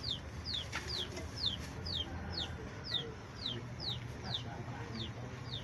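A bird chirping over and over: short high chirps that each fall in pitch, about two a second, over a low steady rumble.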